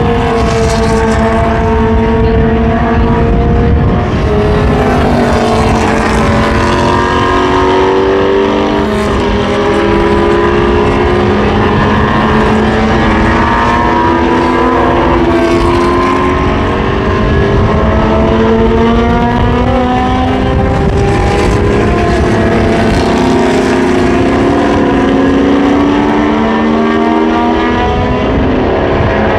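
Several 1960s–70s endurance-racing sports prototypes and GT cars running at racing speed, passing one after another. Their loud engine notes overlap, with pitches rising and falling as they accelerate and shift.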